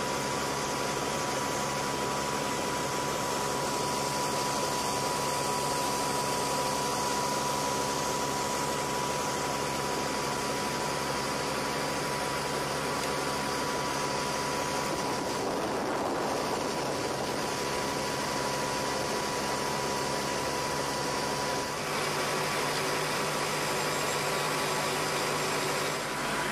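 Ground support equipment running beside a parked F-16: a steady machine hum with a high, constant whine, the whine dropping out a few seconds before the end.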